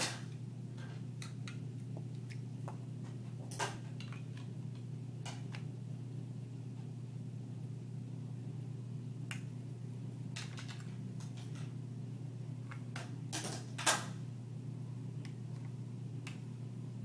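Large plastic toy building blocks clicking and knocking together as a child handles and presses them onto a stacked tower: scattered short clicks, the loudest near the end, over a steady low hum.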